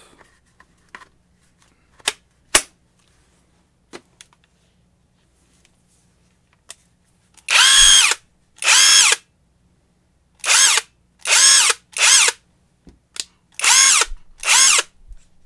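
Tacklife 20-volt half-inch cordless impact wrench run free in short trigger pulls: seven brief bursts of motor whine, each rising in pitch as it spins up and falling as it stops. A few sharp clicks come before the first burst.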